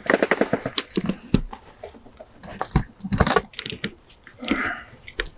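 Close handling noise: rustling and crinkling with quick clicks, busiest in the first second, and a louder crackle about three seconds in.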